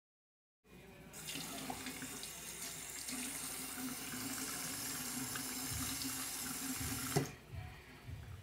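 Water running steadily from a tap into a sink, stopping abruptly with a knock about seven seconds in.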